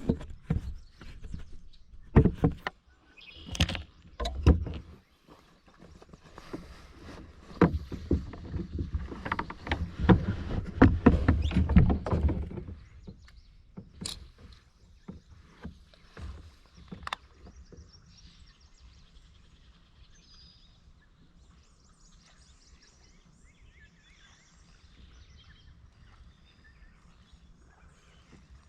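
Knocks, bumps and rustles of gear being handled in a kayak, with water sounds, for about twelve seconds, then a few scattered clicks. After that it goes quieter, with faint high chirping.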